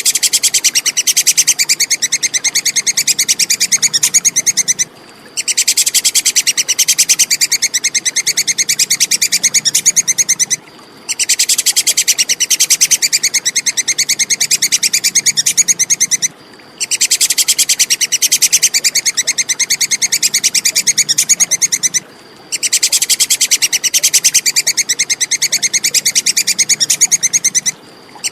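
Tupai kekes (squirrel) chattering call: a rapid, high-pitched string of ticking notes in bouts of about five and a half seconds, each broken by a short pause, repeating evenly like a loop.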